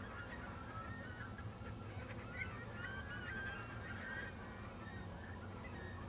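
A flock of wetland birds calling, many short overlapping calls that slide up and down in pitch, over a low steady hum.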